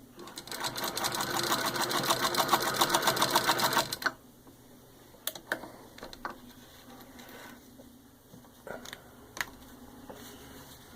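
Antique Wheeler & Wilson No. 9 hand-crank sewing machine running as it is cranked, a fast, even clicking of the mechanism that stops about four seconds in. A few separate light clicks follow.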